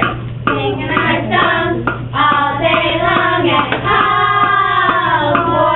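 A group of children singing together, with a long held note in the second half that sags slightly in pitch near its end.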